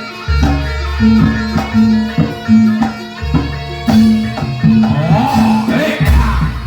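Loud traditional Javanese barongan accompaniment music: drums and a repeated low melodic figure over deep bass beats, with some sliding higher tones in the second half.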